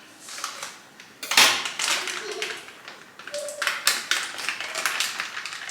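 Crinkling and tapping of a pancake mix packet being handled and opened, in irregular bursts with a sharper crackle about a second in.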